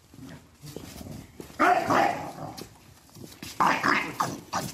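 Dog barking in two bursts, about a second and a half in and again near four seconds: reactive barking at another dog close by.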